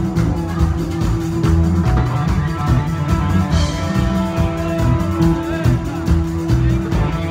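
A live band playing a Latin pop song: drums, electric bass, guitar and keyboards, with the bass and drums loudest in the mix.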